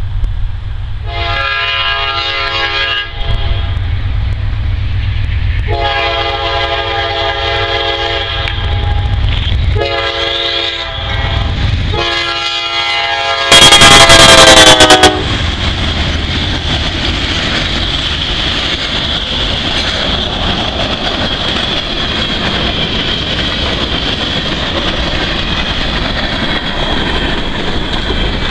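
Diesel freight locomotive's multi-chime air horn sounding the grade-crossing signal: long, long, short, long, the last blast the loudest and dropping in pitch as the locomotive passes close by. Then the steady rumble and clatter of freight cars rolling past, with a thin high whine running along.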